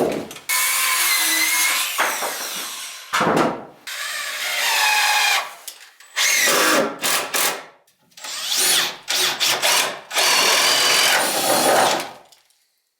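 A power tool run in about five bursts of one to two seconds each, its motor pitch wavering under load, with short pauses between; it stops abruptly near the end.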